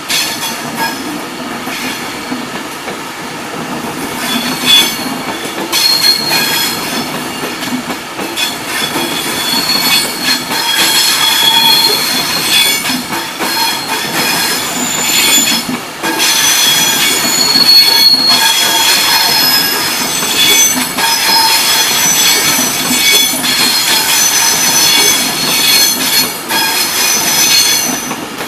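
Class 390 Pendolino eleven-car electric train pulling out and running past, its wheels squealing on the rails with shifting high-pitched tones over a rolling rumble. It gets louder about ten seconds in as the carriages pass close by.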